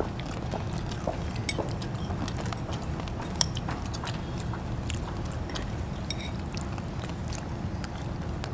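Scattered crunches and sharp little clicks of someone eating a crunchy snack close to the microphone, over a steady low background hum; a few louder clicks about one, one and a half and three and a half seconds in.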